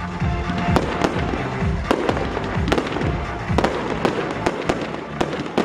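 Fireworks display: sharp bangs of bursting shells at uneven spacing, about one or two a second, with music playing under them.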